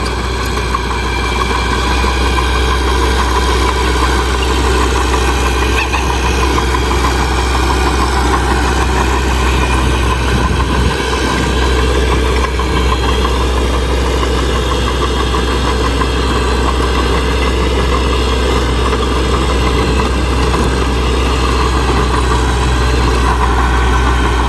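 Diesel engine of heavy earthmoving equipment, a bulldozer or dump truck, running steadily with a deep, even drone.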